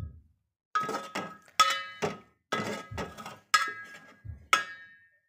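Metal spoon knocking against a metal cooking pot while stirring amla pieces into sugar syrup: about ten sharp clinks, roughly two a second, each ringing briefly.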